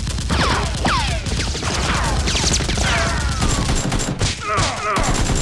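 Rapid automatic gunfire sound effects, a dense run of shots, laid over the blaster fight, with several high whines falling in pitch among the shots.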